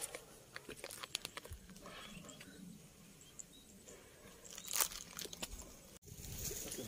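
Quiet footsteps crunching and rustling on a grassy, straw-strewn path, with irregular clicks and scuffs. About six seconds in the sound cuts to a steadier background hiss.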